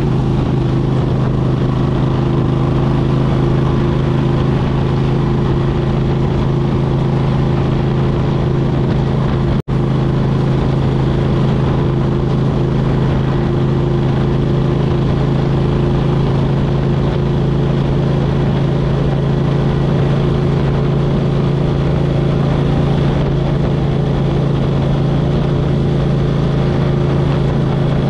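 2003 Suzuki Intruder 1400's V-twin engine through a Vance & Hines Classic exhaust, running at a steady pace while the motorcycle cruises, with no revving up or down. A little under ten seconds in, the whole sound cuts out for a split second.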